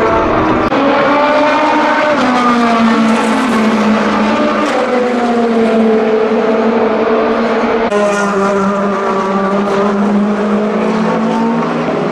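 Lamborghini SC63 LMDh race car's twin-turbo 3.8-litre V8 at racing speed, loud. The engine note climbs, then falls slowly over several seconds. About eight seconds in it jumps abruptly to a new, steady note.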